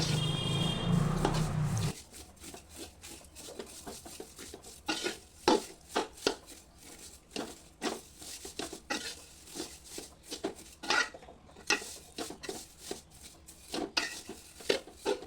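A spoon stirring vermicelli as it fries in ghee in a metal cooking pot: irregular scrapes and clinks of the spoon against the pot.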